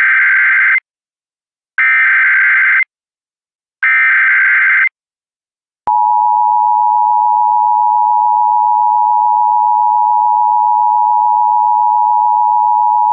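Emergency Alert System tones. Three short bursts of SAME digital header data come about a second apart. About six seconds in, the steady two-tone EAS attention signal begins and holds, announcing the alert that follows.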